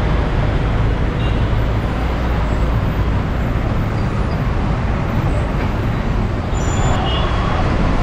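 Steady road traffic noise from a busy junction below: cars, motorbikes and trucks running, with a constant low engine rumble.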